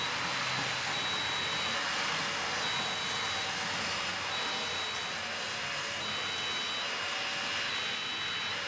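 Model fire-brigade two-tone siren sound effect, switching back and forth between a high note and a slightly lower one about every three-quarters of a second, over a steady hiss.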